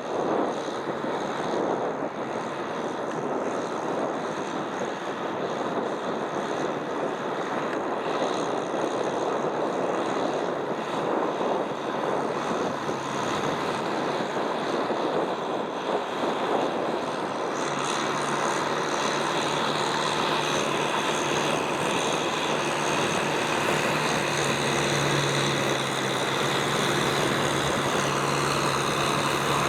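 Tractor diesel engine running while plowing wet mud, a steady mechanical noise. A little over halfway through, a steady low engine hum comes in clearer and holds.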